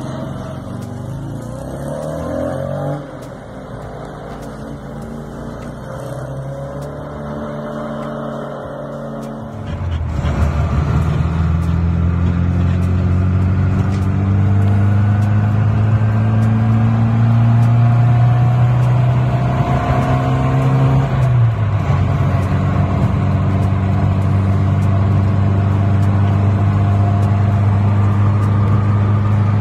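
Classic Mini's 998 cc A-series four-cylinder engine driving off, first heard from outside the car, then from inside the cabin, where it is much louder. There the note climbs slowly under load, drops suddenly about two-thirds of the way through, and then runs steadily at cruise.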